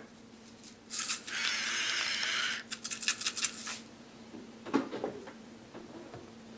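Salt and pepper going onto fried eggs: a grainy rattling hiss for about a second and a half, then a quick run of sharp clicks. A single knock follows near five seconds in.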